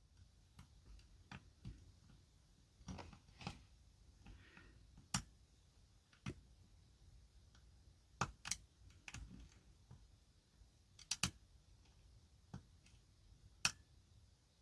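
Faint, irregular clicks and ticks of a lock pick lifting the pins of a challenge lock held under tension, a dozen or so sharp ticks with uneven gaps between them.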